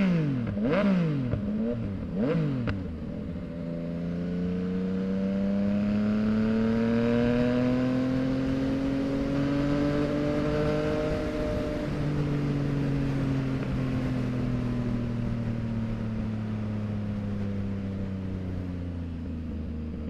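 Yamaha MT-09's 890 cc three-cylinder engine through a full Mexx aftermarket exhaust. There are three quick throttle blips near the start. Then it makes a long pull, rising in pitch for several seconds, and eases off to a steady note that slowly falls.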